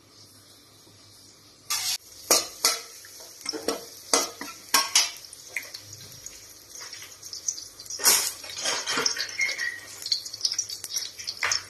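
Metal spatula scraping and clanking against an aluminium wok, in irregular strokes from about two seconds in, over a steady sizzle of minced aromatics frying in oil.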